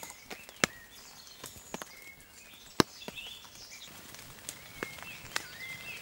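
Footsteps through forest undergrowth, with dry twigs snapping underfoot in a few sharp cracks. The loudest cracks come about half a second in and just under halfway through. Small birds chirp in short calls in between.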